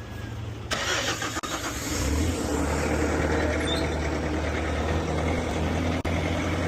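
Heavy machine engine picking up speed about two seconds in and then running steadily at higher revs, with a rush of mechanical noise starting just before it; a sharp click near the end.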